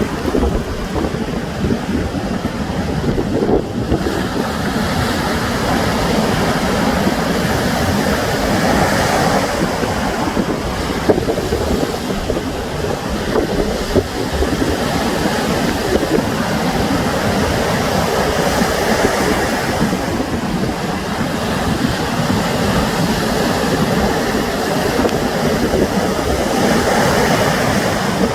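Sea waves breaking and washing up on the shore, the noise swelling and easing every several seconds, with wind rumbling on the microphone.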